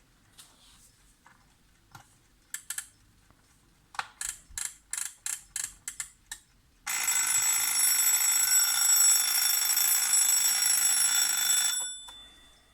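Samsung Royal No 6 alarm clock: a few scattered clicks, then a quick run of about ten clicks at roughly four a second, then the alarm rings loudly and steadily for about five seconds. The ringing stops near the end and dies away briefly.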